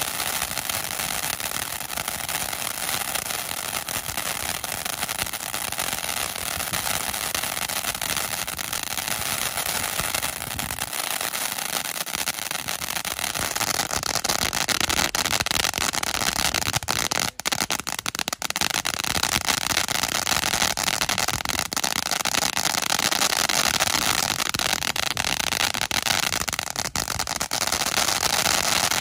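Waikiki Lights 500g firework fountain burning, spraying sparks with a continuous hissing crackle. It grows louder about halfway through.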